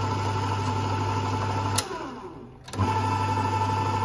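Emco Emcomat 7 lathe's single-phase motor and spindle running with a steady hum and whine. It is switched off with a click a little under two seconds in and winds down in falling pitch, then is switched on again about a second later and comes straight back up to speed.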